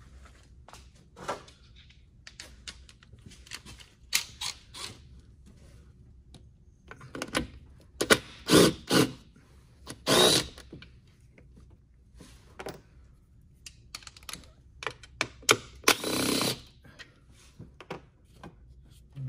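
Cordless power tool with a socket running in short spurts of about half a second, spinning out the intake bolts. Clicks and knocks of tools and metal parts being handled come between the spurts.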